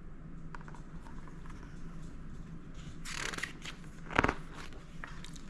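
Paper rustling as a picture-book page is handled and turned, with faint ticks and a short soft knock about four seconds in.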